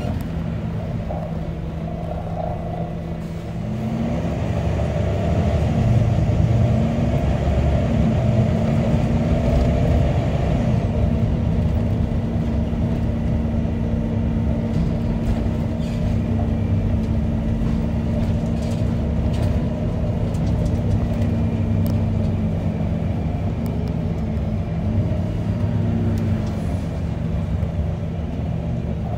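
Bus engine and drivetrain heard from inside the passenger saloon as the bus drives along, running steadily, with the engine note rising and falling a few times as it accelerates and changes gear.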